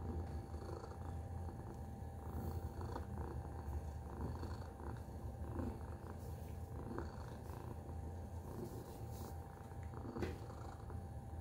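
Tabby cat purring steadily while being stroked, a continuous low rumble. A short click sounds near the end.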